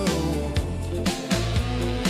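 Background music: a pop song with a steady beat and bass, the voice pausing.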